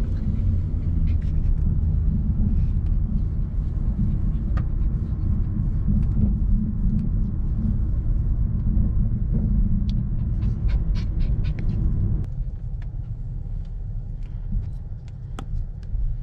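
Car cabin noise while driving: a steady low road and engine rumble, easing a little about twelve seconds in, with scattered small clicks and ticks.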